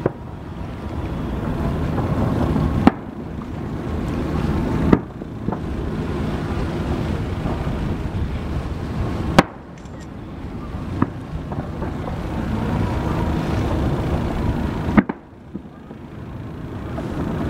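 Aerial firework shells bursting overhead: about four sharp booms, spread out a few seconds apart. Between them runs a steady low rumble of wind and boat noise.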